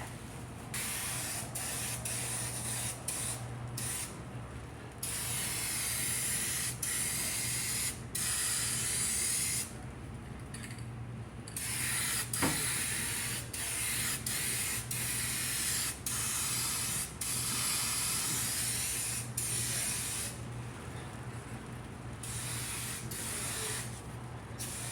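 Paint being sprayed: a hissing spray switched on and off in repeated bursts, some short and some several seconds long, over a steady low hum.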